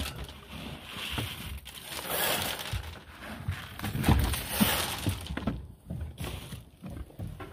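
A pig feeding, with wet chewing and crunching of tomatoes and feed, plus irregular rustling and a few louder thumps about halfway through.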